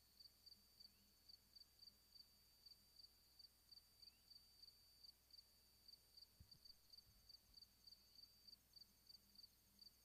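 Faint insect chirping, a high, even pulse repeating about three times a second, against near silence. A soft low bump comes a little past the middle.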